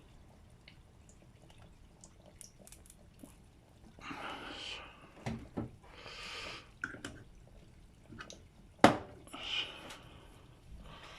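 Kitchen handling noises: a few short scraping and rustling sounds, then one sharp knock, the loudest sound, near the end.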